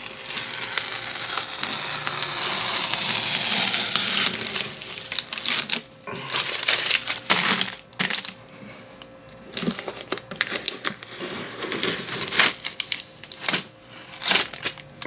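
Blue painter's tape being peeled off an outboard motor's cowl in a long ripping pull for about the first five seconds, then short peels and the used tape crinkling and crumpling in the hands. A faint steady hum runs underneath.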